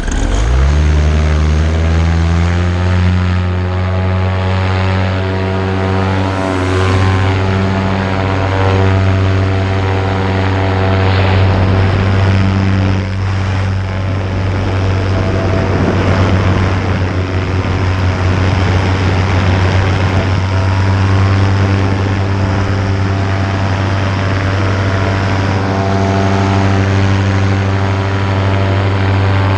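Vittorazi Moster 185 two-stroke paramotor engine and propeller revving up from low speed in the first couple of seconds, then running steadily at full takeoff power.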